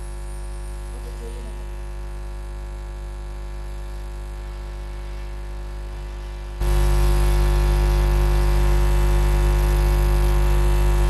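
Steady electrical mains hum and buzz from a public-address sound system, with no voice or music over it. About two-thirds of the way through, the hum jumps suddenly much louder.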